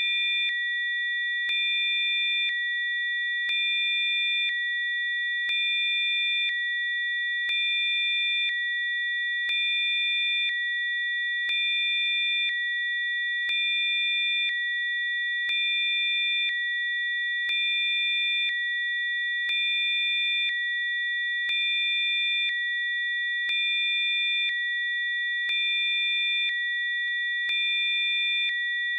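Electronically generated Rife-frequency sine tones: a steady chord of several high pure tones, its level and a fainter lower tone changing back and forth about once a second.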